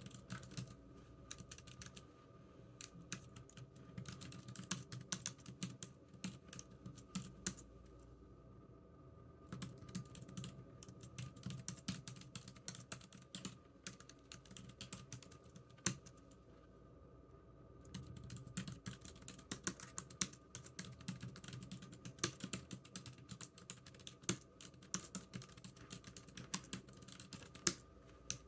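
Typing on a computer keyboard: quick runs of key clicks, broken by short pauses about eight seconds in and again about sixteen seconds in.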